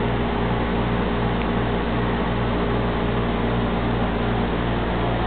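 Water-damage drying equipment, a blower (air mover) and a dehumidifier, running steadily: a constant low hum under a rush of air.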